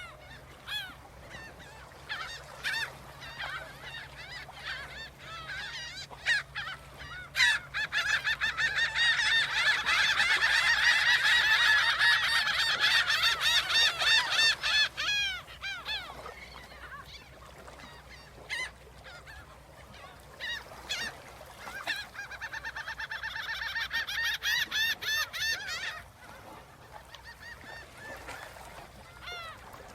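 A flock of geese honking, many calls overlapping. It swells to its loudest from about eight to fifteen seconds in, thins out, then builds again past twenty seconds.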